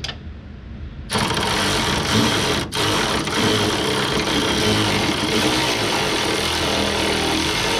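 A handheld power tool starts suddenly about a second in and runs steadily, cutting out briefly once, as it drives a socket on a fastener still under heavy tension.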